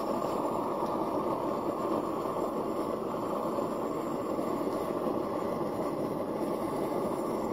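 Propane forge burner running steadily: a continuous, even rush of burning gas that does not change.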